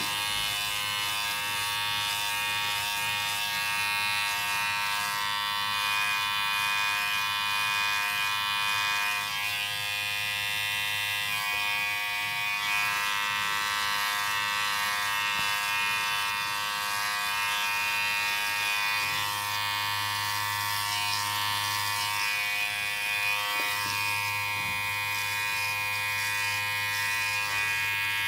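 Electric hair clippers running with a steady buzzing whine.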